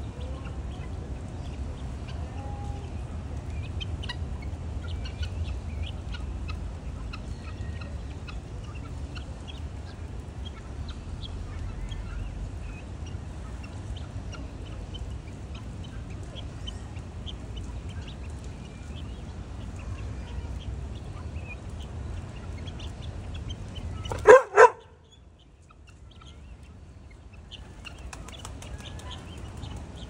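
Birds in a park: scattered short chirps and clucks over a steady low rumble. Late on come two loud, short calls in quick succession, and then the rumble cuts off abruptly.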